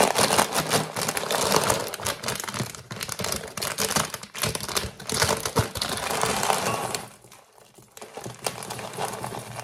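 A crinkly plastic bag of muesli being opened and handled, a dense crackling that dies down about seven seconds in.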